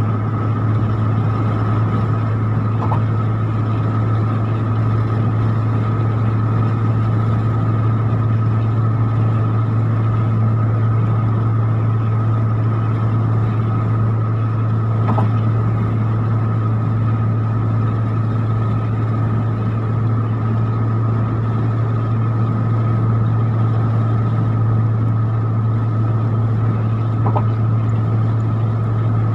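Steady engine and road drone inside a vehicle cruising at highway speed: a constant low hum with a fainter steady whine above it and an even rush of tyre and wind noise.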